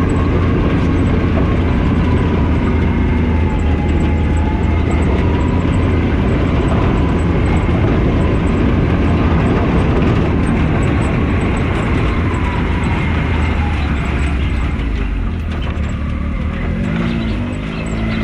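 Can-Am Maverick X3 side-by-side driving, its engine running steadily under a loud rumble of wind and trail noise, with a faint whine that wavers slowly in pitch.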